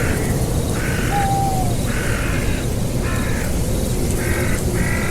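An animal's short harsh call repeated about once a second, six times, over a steady low rumble.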